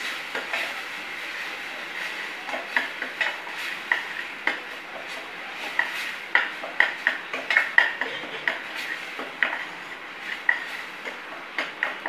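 Long steel spoon stirring a spice paste frying in oil in a stainless steel kadai: irregular clinks and scrapes of metal on the pan, several a second and thickest in the middle, over a steady frying hiss.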